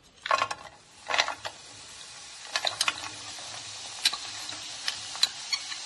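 Small pieces of jaggery being scraped with a steel spoon from a bowl into a hot non-stick pan. They rattle in as two quick tumbles, then a steady sizzle builds, with sharp clicks of the spoon against the bowl and pan.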